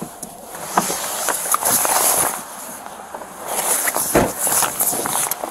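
Police officer getting out of a patrol car with a body-worn camera: clothing rustling against the camera microphone, scattered clicks and knocks, and the door thumping shut about four seconds in.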